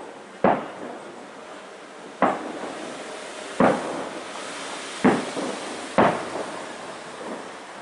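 Fireworks exploding some way off: five sharp bangs at uneven intervals, each followed by a short echoing tail.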